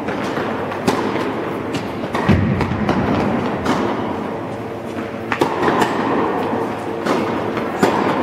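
Tennis balls struck by rackets and bouncing on an indoor court: sharp knocks every second or two, over a steady rumbling background din in a reverberant hall.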